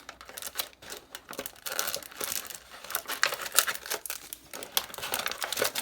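Foil-wrapped Yu-Gi-Oh! booster packs crinkling and rustling as they are handled, a dense run of irregular crackles.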